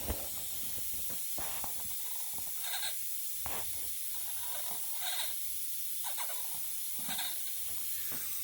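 Steady hiss of steam from a coal-fired live-steam garden-railway locomotive (DR 99 211) under pressure, with a few brief faint sounds over it in the second half.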